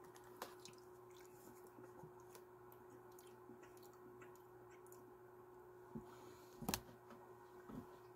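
Near silence: room tone with a faint steady hum, a few faint clicks, and one louder short knock about two-thirds of the way through.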